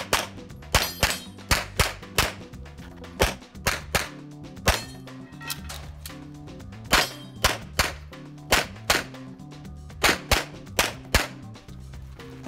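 Canik TP9SFx 9mm pistol fired rapidly during a practical shooting stage: about twenty sharp shots in quick strings, a few tenths of a second apart, with a pause of about two seconds near the middle. Background music runs underneath.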